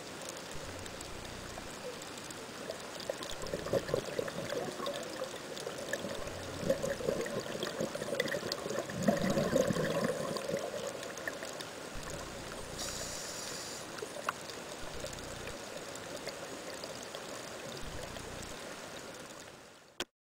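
Underwater sound of a scuba diver's exhaled bubbles, gurgling and crackling in bursts through the middle over a steady hiss, with a brief high hiss about two-thirds of the way in. The sound fades out shortly before the end.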